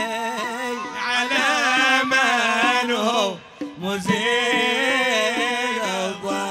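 Men's voices singing a zarbadi, a Hadhrami sung poem, in long held lines that waver in pitch, with a few drum strokes. The singing breaks off briefly a little past the middle, then resumes.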